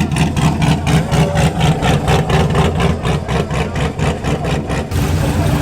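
Car engine idling with a choppy, lopey rhythm of about six pulses a second, the loping idle typical of an aggressive camshaft; the pulsing stops near the end.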